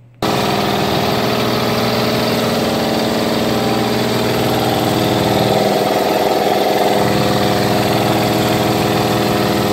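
Electric multi-cylinder air compressor on 220-volt power switching on abruptly a moment in, then running steadily with its motor and pump droning evenly. It starts normally on the rewired 4-prong connection.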